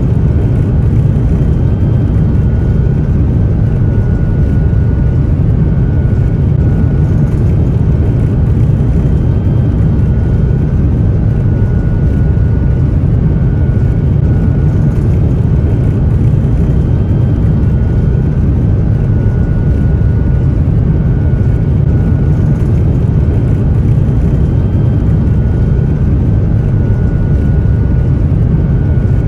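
Cabin noise inside an Airbus A350-900 taxiing: a steady low rumble from its Rolls-Royce Trent XWB engines, with a thin high whine that comes and goes.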